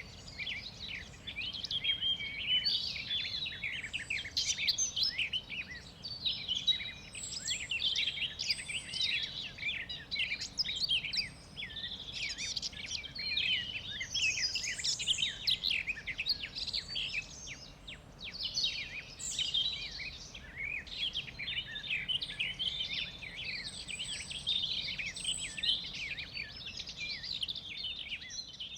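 Many birds chirping and trilling at once in a dense, continuous chorus of short, quick, high-pitched calls, over a faint hiss of background noise.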